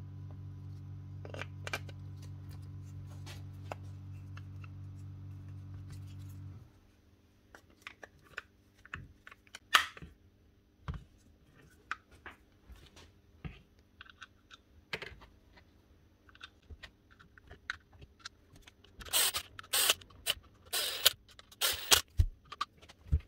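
A workshop air compressor's motor running with a steady low hum, then cutting off suddenly about six and a half seconds in. After that come light clicks and rattles of small plastic tool parts being handled, with a cluster of louder scraping rustles near the end.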